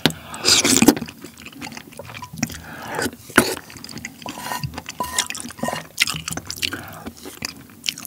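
Close-miked eating of kimchi jjigae with rice: a loud wet slurp from the spoon about half a second in, then lip-closed wet chewing with short smacking clicks.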